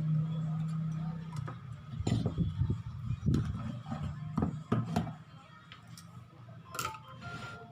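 A steady low hum stops about a second and a half in. A run of light metallic clinks and knocks follows, from tools and metal parts handled on a workbench during an amplifier repair.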